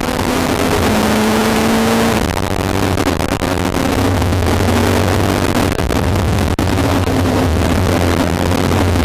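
Rally car at speed, heard from inside the cabin: loud, continuous engine and road noise, with the engine note shifting a little after two seconds in.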